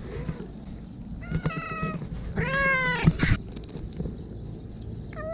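A cat meowing twice, the second meow longer and louder, rising and then falling in pitch. A brief crackle follows just after the second meow.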